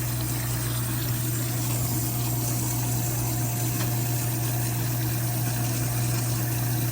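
Whirlpool dishwasher filling: water running into the tub with a steady low hum.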